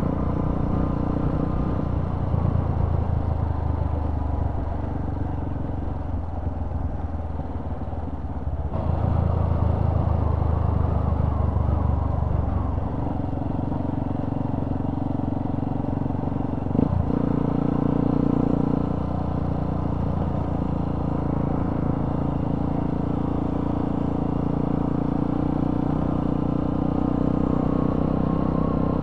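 Motorcycle engine running while riding, its pitch shifting several times with changes of speed, with one short knock a little past halfway.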